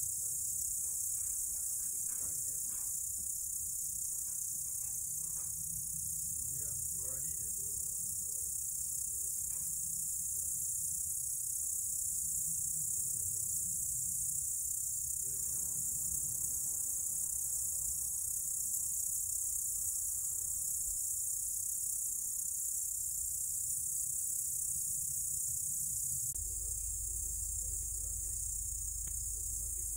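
Crickets chirping in a steady, high-pitched night chorus over a low rumble.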